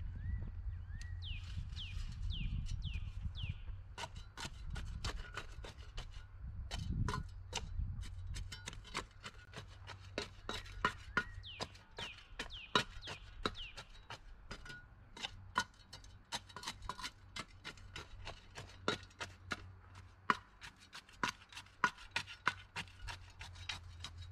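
A steel shovel chopping into and tamping packed dirt, making many sharp, irregular strikes about two or three a second. Birds sing short falling chirps near the start and again midway.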